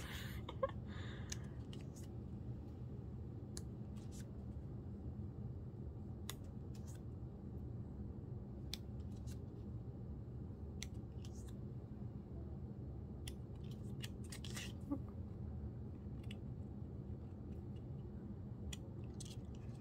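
Pages of a small paper booklet being turned by hand, with scattered crisp paper clicks and rustles over a steady low background hum.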